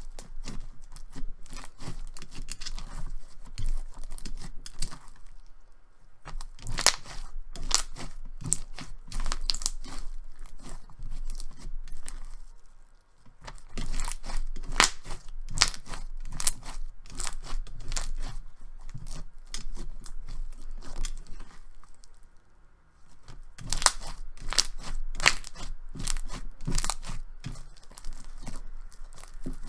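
Clear slime packed with plastic fishbowl beads being squeezed and worked by hand, giving crunchy crackles and sharp clicks in runs, with short lulls about six, thirteen and twenty-two seconds in.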